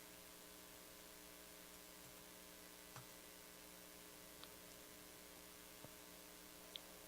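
Near silence: a faint steady electrical hum, with four faint small clicks spread through it.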